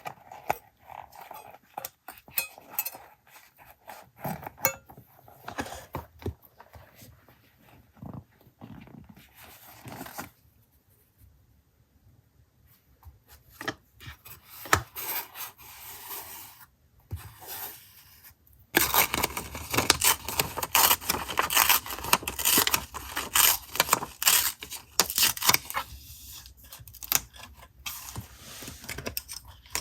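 Paper crafting sounds: paper and stickers being handled, with soft rustles, scrapes and small taps, a brief hush, then busier and louder rubbing and scraping of paper in the last third.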